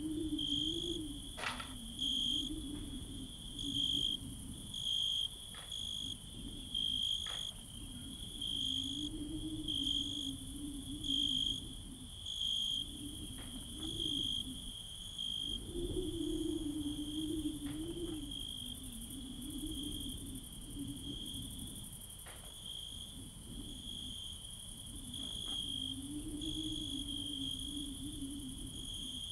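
Insects chirping: a high, cricket-like trill with louder chirps about once a second, over a low wavering hum, with a few faint clicks.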